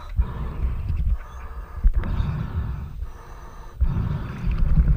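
Water sloshing and bubbling around a diver's camera held at the waterline beside a boat hull. It comes as deep, rumbling surges about a second long, with brief breaks between them.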